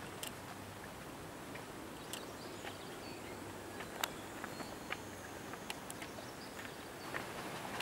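Irregular light clicking footsteps on a paved path, several per second, over a steady outdoor background hiss.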